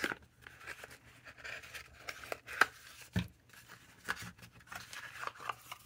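Small kraft cardboard box handled and opened by hand: faint rustling and scraping of the card flaps, with scattered small clicks and taps.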